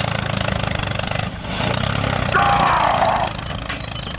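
Tractor engine running steadily at idle, with a short high sound falling in pitch a little past two seconds in.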